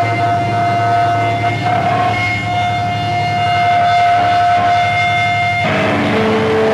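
Electric guitar feedback through the amplifier, one steady high tone ringing on. Near the end it gives way to lower, held guitar notes.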